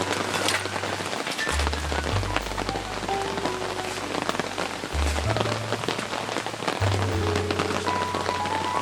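Steady rain falling, with many small drops ticking through a dense hiss. Background music plays with it: a low bass line that changes note every second or two under a soft melody.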